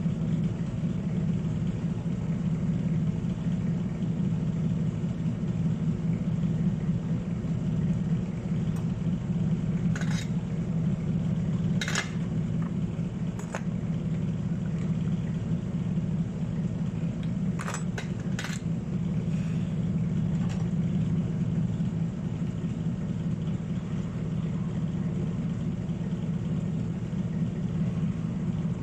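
Steady low motor hum throughout, with several sharp light clicks in the middle.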